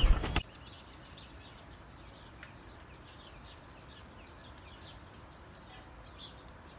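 A brief loud knock that cuts off suddenly under half a second in, then faint birds chirping: a quick, irregular series of short high chirps.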